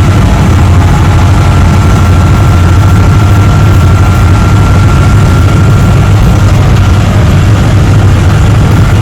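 Steady low engine and road noise from a moving car, loud and unbroken.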